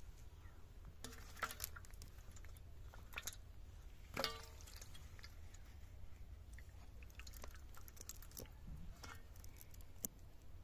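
Scattered small wet clicks and squelches of disturbed water and mud over a low steady hum, with one short pitched sound about four seconds in.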